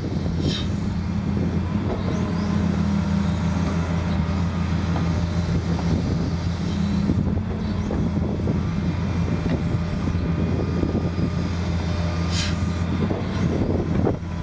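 John Deere excavator's diesel engine running steadily under hydraulic load, a constant low drone, while the arm drags a log gripped between the bucket and thumb through the dirt.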